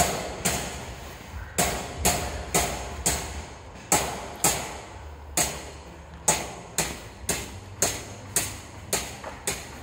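Hammer blows, sharp ringing strikes about two a second in short runs with brief pauses, over a steady low rumble.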